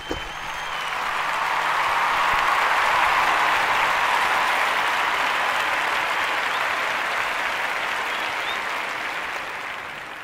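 Applause from many hands, swelling up over the first few seconds and then fading slowly away.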